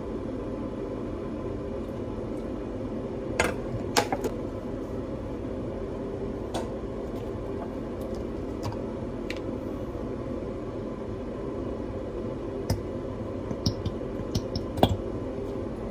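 A steady mechanical hum like a running fan, with a few sharp light clicks and clinks of dishes or utensils, a small cluster of them near the end.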